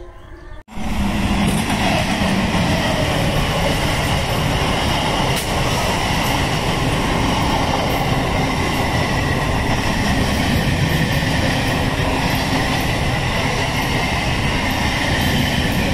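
MEMU electric local train passing at speed close by, a loud, steady rush of wheels and coaches on the track. It sets in abruptly just under a second in.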